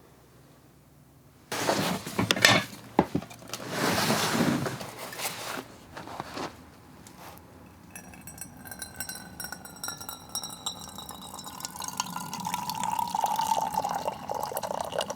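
Liquid being poured into a container, with a pitched ringing as it fills. Before it come a few seconds of clinking and handling noise.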